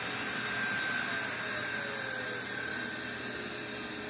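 Uncovered 23 GB hard drive with a tall stack of bare platters, whirring with a rushing air noise and a faint whine. The whine slowly falls in pitch and the whole sound gradually fades as the spindle spins down after power is cut.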